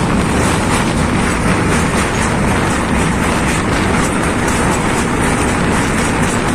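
Passenger train running across a long rail bridge, a steady loud rumble heard from on board.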